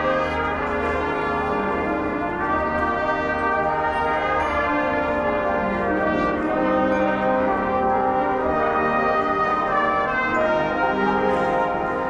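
High school marching band's brass section playing a slow passage of held chords, the notes changing every second or two.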